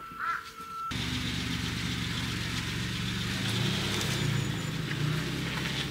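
Kia Ray light car's engine running steadily at idle, coming in abruptly about a second in. A crow caws once just before.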